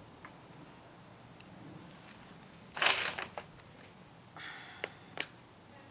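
Small fire of burning photographs crackling faintly in a charcoal grill, with scattered light ticks. A short loud burst of noise comes about three seconds in, and a softer one with two sharp clicks near the end.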